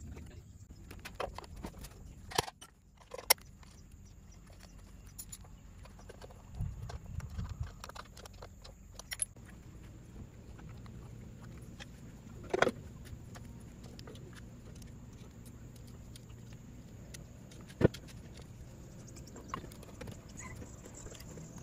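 Hand tools clinking against Lambretta engine parts: a few sharp metallic clicks and knocks spaced several seconds apart, with smaller ticks between, over a faint steady low hum.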